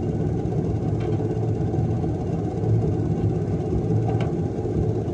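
Outboard motor idling steadily, a constant low rumble.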